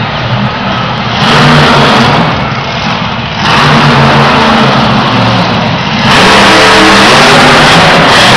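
Monster truck's supercharged V8 engine revving hard in throttle bursts, very loud. There are brief lulls early on and a second or so later, then it holds at full throttle from a few seconds in as the truck climbs onto crushed cars.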